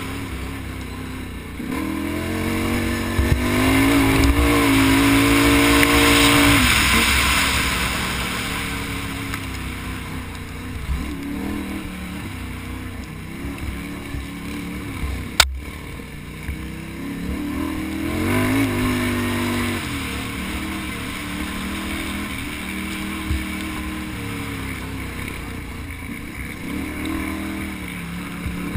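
Can-Am Outlander XXC ATV's V-twin engine under throttle, revving up to a peak a few seconds in and again later on, easing off in between. A single sharp crack comes about halfway through.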